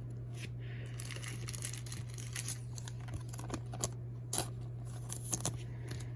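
Trading cards being handled: irregular soft rustles, slides and small taps as cards are moved one behind another, over a steady low electrical hum.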